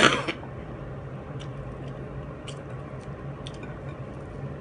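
Close-up eating sounds: soft chewing with faint scattered clicks and smacks as fish is picked apart by hand and eaten, over a steady low hum. A short loud burst comes right at the start.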